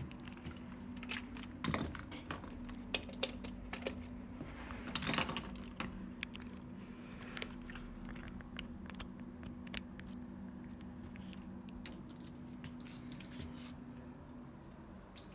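Faint scattered clicks and short rustles of a Nokia N82 phone being handled and its keys pressed, over a steady low hum.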